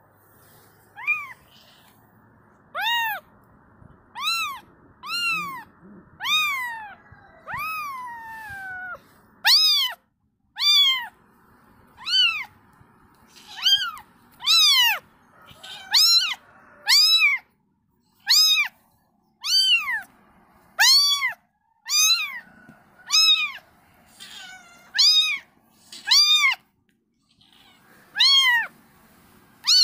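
A kitten meowing over and over, short high-pitched calls about one a second; a few of the earlier ones are longer and slide down in pitch.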